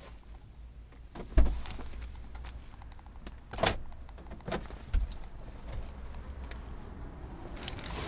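Scattered knocks and clunks of someone moving about inside a parked car, three of them louder thumps. Near the end a car door opens and the sound opens out into street air.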